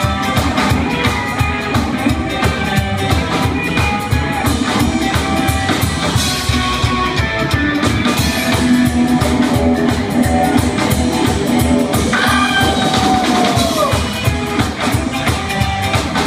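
Live rockabilly band playing at full volume: a Gretsch hollow-body electric guitar, upright double bass and a drum kit keeping a steady, driving beat.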